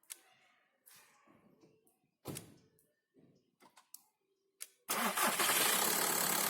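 A few faint clicks and a short knock, then about five seconds in the Skoda Octavia's 1.9-litre diesel engine starts at once and runs steadily. It is being started off a portable lithium jump starter because the car's battery is too weak to crank it.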